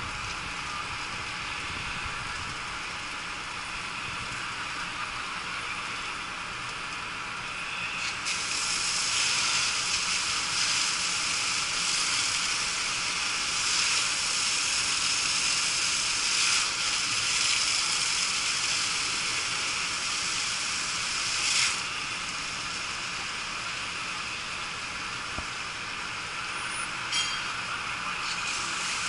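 Fire hose spraying water onto a burning city bus, a steady hiss of spray and steam. The hiss grows louder about eight seconds in and eases back a little after about twenty-two seconds.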